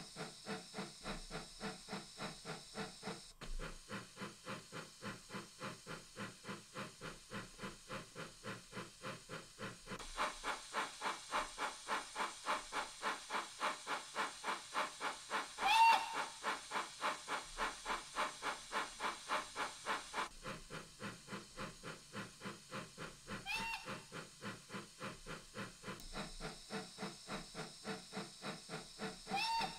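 Model steam locomotive exhaust from a DCC sound decoder (Wheeltappers 1P steam sound) played through small model-railway speakers: a steady chuff at about three to four beats a second. Its tone and loudness change several times as the sound is switched between speakers, and three short whistle toots sound during it.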